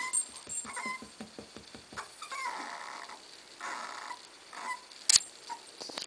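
Corgi puppy whimpering: a few short, soft, high whines and cries. A sharp click about five seconds in.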